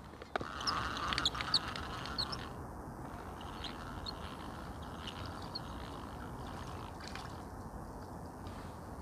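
A quick flurry of short bird calls in the first two or so seconds, then a steady background hiss.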